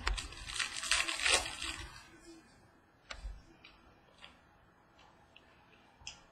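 Trading-card pack wrapper crinkling for about two seconds, then a few faint ticks as the cards are handled.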